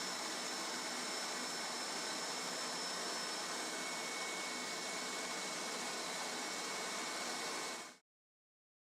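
Hoover SteamVac All Terrain carpet cleaner's suction motor running steadily with a faint high whine, cutting off suddenly near the end.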